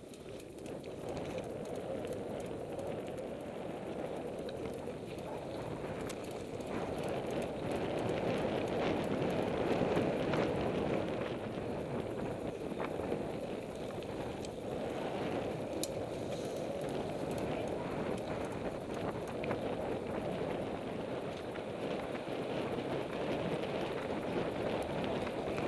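Mountain bike riding noise as heard from a camera on the bike: a steady rush of wind on the microphone and tyres rolling over dirt trail, with scattered clicks and rattles from the bike.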